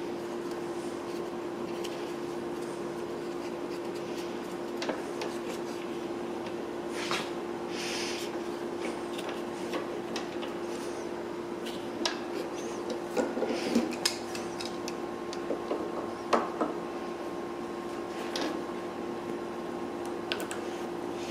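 Scattered small clicks, taps and rubbing as a ribbed rubber serpentine drive belt and a piece of cardboard are worked by hand onto a planer's metal pulley, with the clinking of locking pliers on the pulley. A steady low hum runs underneath.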